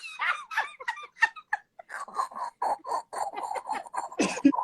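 People laughing in quick, short bursts that run on through the whole stretch.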